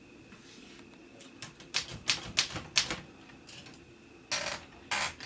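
Keys of a 1935 Olympia Elite typewriter being struck: a quick run of about six sharp clacks, followed near the end by two longer, scratchier mechanical noises.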